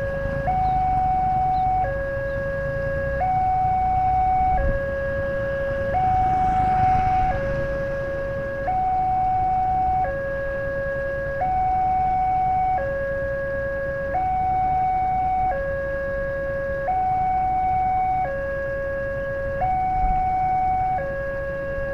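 Railway level-crossing alarm sounding its two-tone warning, a lower and a higher tone alternating evenly, each held for about a second and a half. It is the signal that a train is approaching the crossing.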